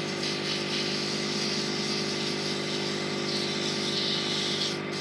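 Wood lathe running steadily, its motor humming, while a sheet of 180-grit sandpaper hisses against the spinning pen blank to level its glue coat. The sanding hiss grows louder from about three seconds in and drops away just before the end.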